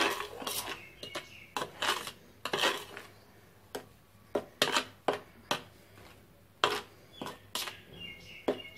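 A metal spoon stirring dry flour mix in a bowl, the spoon clicking and scraping against the bowl in short, irregular strokes.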